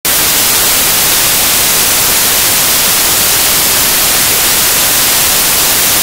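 Loud, steady static hiss like white noise, cutting in suddenly from silence.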